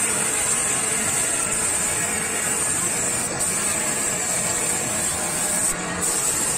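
Gravity-feed compressed-air spray gun hissing steadily as it sprays a coat of finish onto a wooden panel, with a brief break in the spray near the end.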